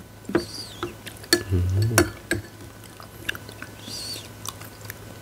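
Eating noises: a spoon clicking against a bowl several times and chewing of soft banana-coconut-tapioca pudding, with a brief low murmur of voice near the middle.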